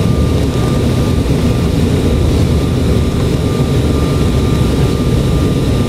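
Steady cabin rumble of an Embraer 195 jet airliner on the ground after landing, heard from a seat by the wing: the turbofan engines running and the airframe rumbling as it rolls, with a faint steady whine above.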